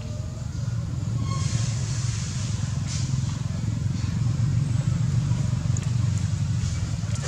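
Steady low rumble of a motor vehicle engine running, growing a little louder with a hiss above it about a second in.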